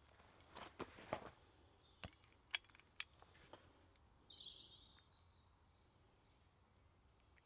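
Quiet clicks and taps of a swing-top glass bottle being handled, then a short pour of milk into tea in a wooden kuksa cup about four seconds in.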